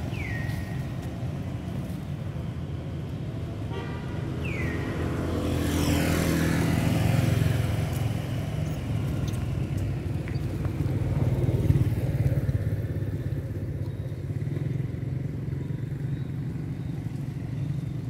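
Motor vehicle engine noise: a steady low rumble that swells as a vehicle passes, with its pitch sliding, about six seconds in, and peaks again near twelve seconds. Two short high falling chirps come at the very start and about four seconds in.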